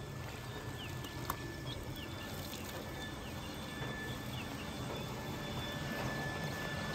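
Steady outdoor evening background: a thin, high insect drone with a few short falling chirps, over a low steady hum and noise that fit the irrigation motor pump running nearby.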